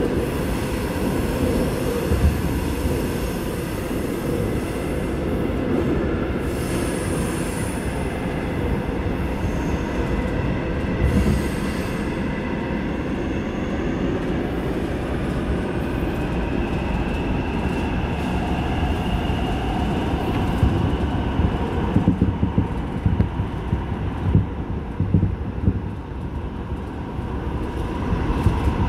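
Seoul Subway Line 8 train running through a tunnel: a steady rumble of wheels on rail with a faint high whine that rises a little about halfway through. Near the end the running becomes more uneven, with a few louder knocks.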